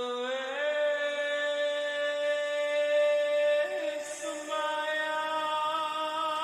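Music of long held, slowly sliding notes, in the manner of a chant; the notes change about four seconds in.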